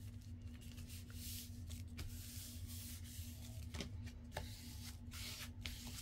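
Hands rubbing and smoothing a paper journal card flat on a manila folder: a soft, scratchy hiss with a few light ticks.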